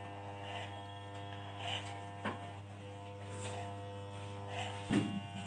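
Steady electric hair-clipper buzz, with a few soft swishes and a knock or two over it.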